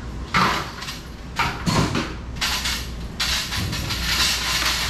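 Knocks and scrapes from goods being moved about on the flatbed of a light truck: a few sharp knocks in the first two seconds, then two longer scraping stretches. A steady low hum runs underneath.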